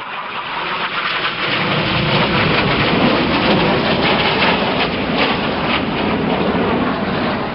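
Red Arrows' BAE Hawk T1 jets flying past: a loud jet roar that builds over the first two seconds and then holds.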